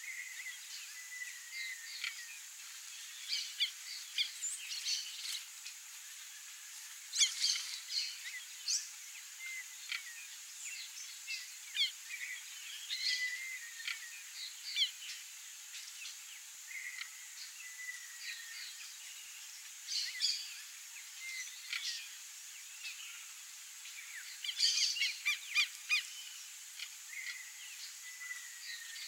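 Wild birds chirping and calling in short, scattered phrases throughout, over a steady high-pitched hiss.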